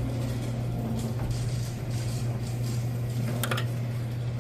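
Garage door opener motor running with a steady low hum, with a brief rattle about three and a half seconds in.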